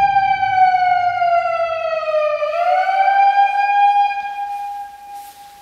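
Electronic siren wailing: one tone that slowly falls in pitch, swoops back up about two and a half seconds in, then fades out near the end.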